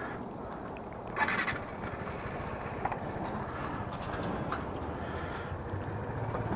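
Motor scooter engines idling steadily, with a brief burst of noise about a second in.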